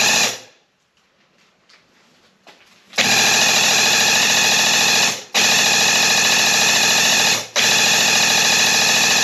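Graco Ultimate Quickshot airless paint sprayer's pump running loudly while the gun sprays primer, switching on and off with the trigger: one run stops just after the start, then three longer passes from about three seconds in, each cut off abruptly with a short gap between.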